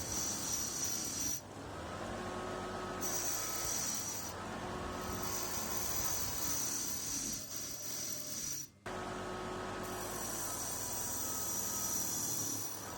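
Washing-machine universal motor running with a steady high whine. The whine drops out and comes back several times, with a tone bending up in pitch as it returns. The sound breaks off abruptly about nine seconds in and then resumes.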